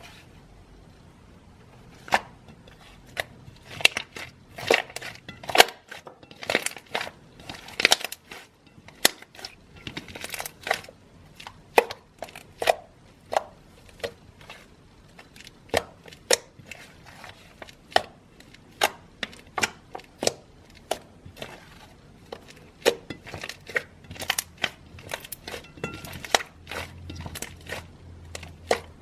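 Hands squeezing and poking slime, making irregular sharp pops and clicks, at times several a second.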